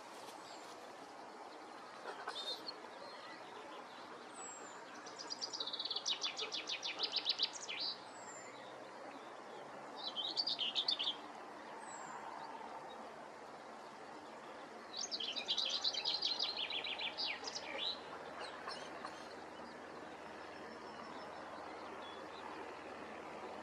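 White wagtail twittering song in three bouts of rapid high notes, the longest about three seconds, with a short call before them, over steady background noise.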